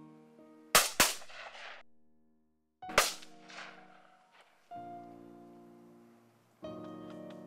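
Shotgun shots at wood pigeons: two in quick succession about a second in, and a third about two seconds later, each with a short echoing tail. Background music of held chords plays underneath.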